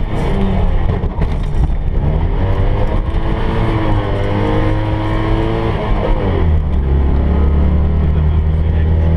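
Citroën 2CV AZAM6's air-cooled flat-twin engine pulling hard under way, heard with the car's rattles and road noise. The engine note climbs, holds, then drops sharply about six seconds in and settles at a lower, steady pitch.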